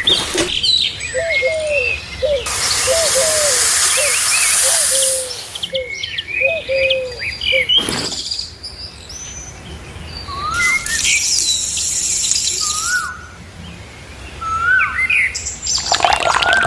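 Small birds chirping busily, many short calls and quick falling notes overlapping. Twice a spell of hissing noise lasting a few seconds rises over them, and another noisy burst starts near the end.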